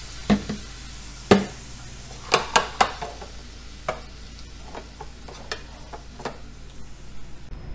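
Pan sauce and pork chops sizzling in a skillet while a utensil knocks and scrapes against the pan about a dozen times, in clusters. The sizzle cuts off just before the end.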